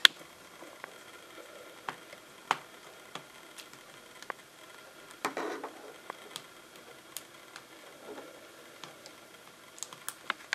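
Scattered small clicks and ticks of a precision screwdriver and small screws being worked out of the plastic screen bezel of a Lenovo IdeaPad Y470 laptop and set aside. There is a sharp click at the very start and a brief scrape about five seconds in.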